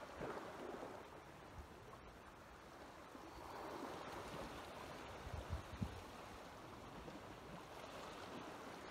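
Small sea waves washing against the shore rocks: a faint, steady wash that swells about four seconds in, with a few soft low thumps a little later.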